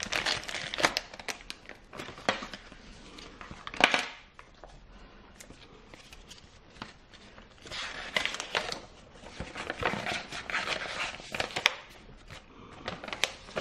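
Clear plastic packaging crinkling and rustling as it is handled and pulled open, with a louder crackle about four seconds in, a quieter stretch after it, then more crinkling.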